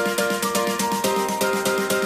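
Instrumental background music with a quick, steady pulse of repeated notes.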